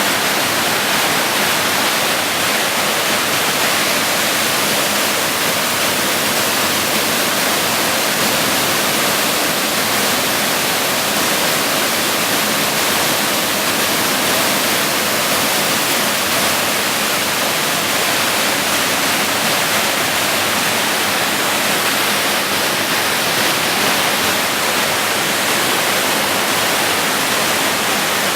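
Waterfall rushing steadily: an even, unbroken hiss of falling water, strongest in the high range.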